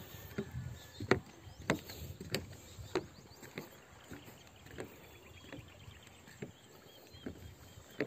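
Footsteps knocking on the loose wooden planks of a footbridge, a steady walking pace of about one and a half steps a second, the loudest about a second in and softer toward the end.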